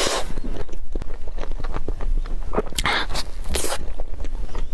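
Close-miked eating: bites into a chocolate-coated cream towel-roll cake, the thin chocolate coating crackling, with chewing and mouth clicks between a few louder crackly bites.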